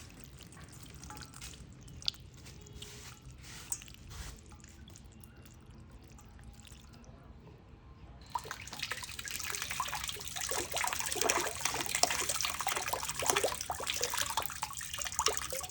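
Water splashing and dripping, faint and scattered at first, then growing much louder and busier from about halfway through.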